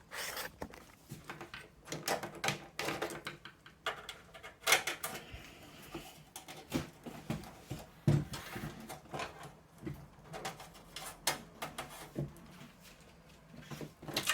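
Irregular clicks, taps and rustles of a SATA cable and a desktop PC case's plastic and metal parts being handled while the cable is routed through the case.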